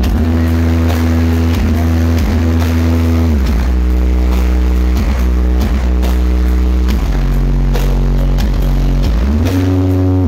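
Loud bass-heavy music played through a large sound system at a sound check. Long held bass notes and chords slide in pitch into the next note every second or two.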